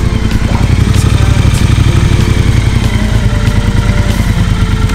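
Triumph Bonneville T120's 1200 cc parallel-twin engine running at low revs with a steady low pulse as the bike pulls up and stops.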